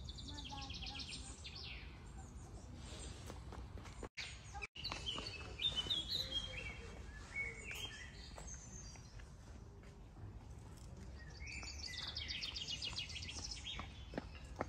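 Songbirds singing outdoors: a rapid trill of high notes near the start and again near the end, with a run of chirps stepping down in pitch in between, over a faint steady low background noise. The sound drops out briefly twice a little after four seconds.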